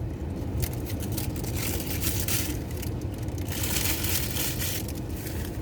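Steady low rumble inside a car, with two spells of hiss lasting about a second each, around two and four seconds in.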